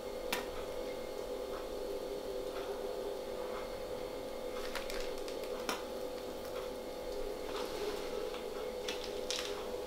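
Steady faint hum with a few soft clicks and squishes as a piping bag of warm mashed potato is squeezed out through a star nozzle into a glass oven dish.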